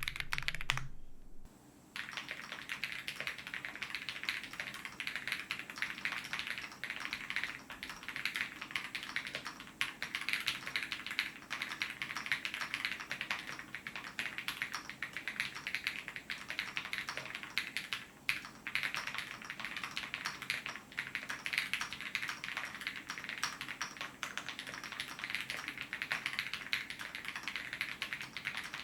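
Typing on an acrylic-cased Owlab Spring mechanical keyboard with KTT Peach linear switches and PBTFans Pyga PBT keycaps: a fast, continuous stream of keystroke clacks, with a brief pause about a second and a half in.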